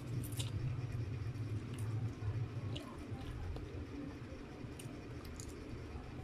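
Close-up chewing of a mouthful of stir-fried noodles, with a few short wet mouth clicks and smacks. A steady low hum runs underneath.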